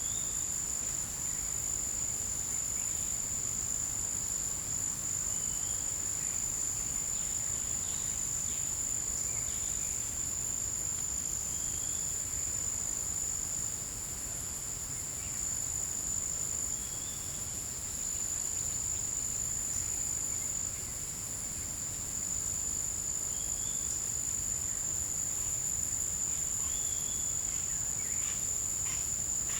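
A chorus of forest insects in a continuous high-pitched, steady drone. Short faint chirps come every two to three seconds.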